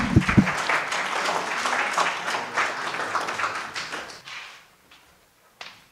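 Audience applauding, a dense patter of clapping that fades out about four and a half seconds in.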